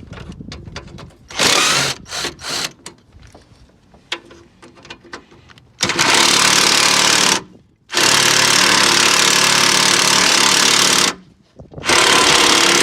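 Power impact wrench hammering on stubborn 14 mm battery-tray bolts. A few short blips come about a second and a half in, then three long runs of hammering, the middle one about three seconds long.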